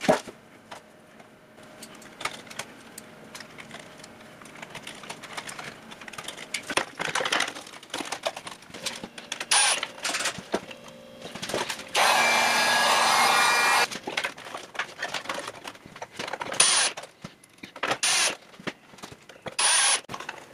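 Workshop tool handling: scattered clicks and knocks while wiring, with a power tool running steadily for about two seconds a little past the middle, and a few short louder bursts near the end.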